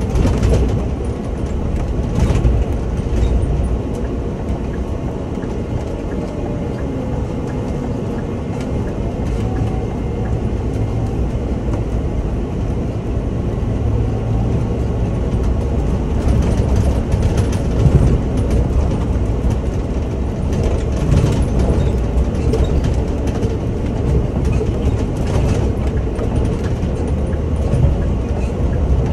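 Scania Omnilink city bus driving, heard from the driver's cab: a steady low engine and road rumble as the bus pulls away and gathers speed, growing slightly louder in the second half.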